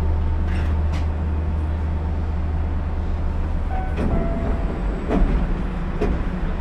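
Osaka Monorail car standing at a station with a steady low hum from its onboard equipment. A few short knocks and brief beeps sound between about four and six seconds in.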